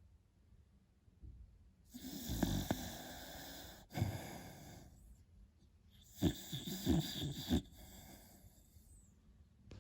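Beagle puppy snoring in its sleep: after a quiet first two seconds, two long snoring breaths, then a quick run of short snores.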